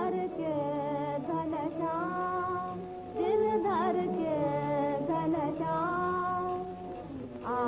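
A woman singing a long, drawn-out melodic line of a Hindi film song, with a fresh phrase beginning about three seconds in.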